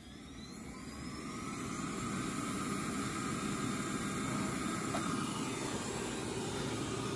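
Robot vacuum's suction fan spinning up with a rising whine, swelling over the first couple of seconds and then running steadily as it starts a cleaning run.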